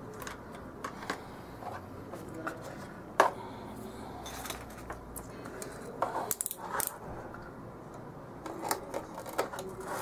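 Clear plastic blister packaging and small toy parts being handled: scattered light clicks and crinkles, with one sharp click about three seconds in and a busier patch of crinkling later on.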